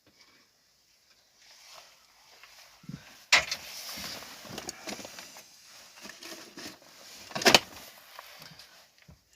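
Two sharp knocks during work on a wooden bird feeder, about three seconds apart, with the second the louder. Smaller knocks and rustling handling noise fill the time between them.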